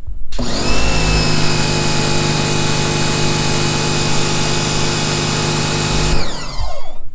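Sun Joe SPX3000 electric pressure washer's motor and pump starting when the spray gun trigger is pulled, rising quickly in pitch and then running steadily with the hiss of the water jet from the 40-degree nozzle, the pump holding about 1,500 psi at its outlet. About six seconds in it cuts off and winds down with falling pitch.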